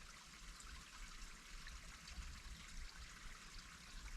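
Faint, steady rushing of running water, with no distinct events.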